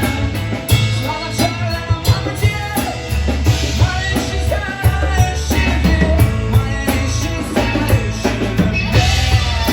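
Rock band playing live: a drum kit keeping a steady beat over a heavy bass, with a gliding melodic lead line on top and no words sung.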